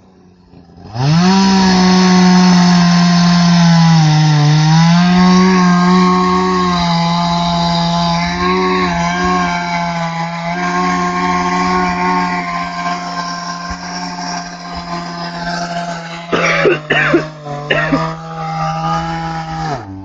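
Chainsaw revved up to full throttle about a second in and held there while cutting, its pitch dipping briefly near four seconds in, with some clattering knocks near the end; it drops off right at the end.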